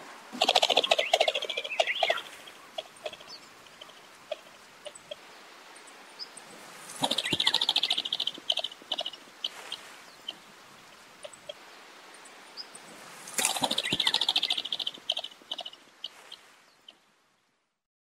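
Copper pheasant calling: three bursts of rapid, rattling notes about two seconds each, some six seconds apart, with short single chirps in between. The sound stops about a second before the end.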